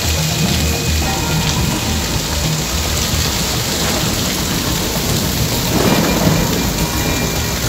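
Heavy tropical downpour: dense rain pouring down steadily, with a deep low rumble underneath that swells about six seconds in.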